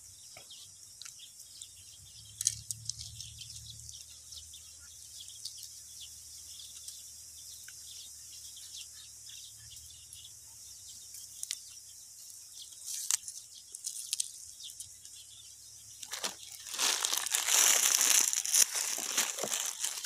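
A plastic bag crinkling and rustling, loud near the end, after a long stretch of faint hiss with scattered small clicks.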